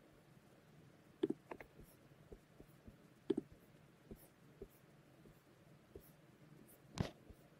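Faint, scattered clicks and taps of a computer mouse being clicked and scrolled, about half a dozen irregular ones, the loudest near the end.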